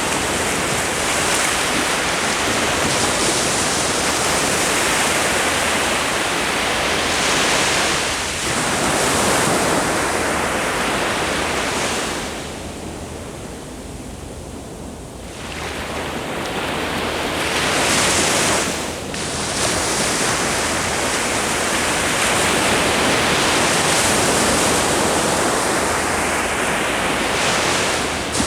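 Ocean waves breaking and washing up the shore, a continuous rush of surf that eases to a quieter lull about halfway through and then builds again.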